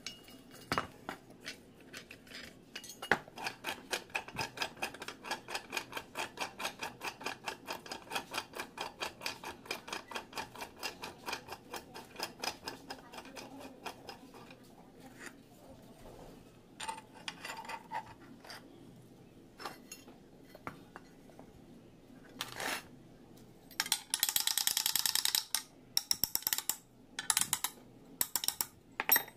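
Metal-on-metal tapping and clinking of workshop tools on steel vise parts. A fast, even run of sharp clicks, about three a second, stops about halfway. Scattered clinks follow, with a short burst of hiss near the end.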